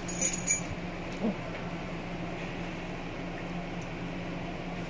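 Six-week-old German Shepherd puppies chewing and tearing at raw meat, with a few sharp clicks in the first half-second and a short whimper about a second in, over a steady low hum.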